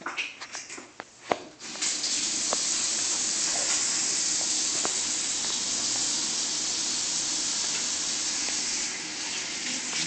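A few clicks and knocks, then water from a kitchen tap starts gushing about two seconds in and runs steadily into the sink.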